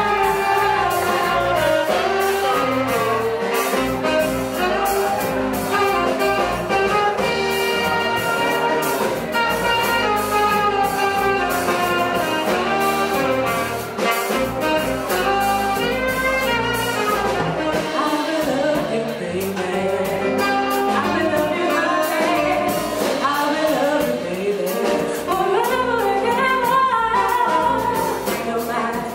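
Live jazz band playing a song: a woman singing over saxophone, keyboard, bass guitar and drum kit.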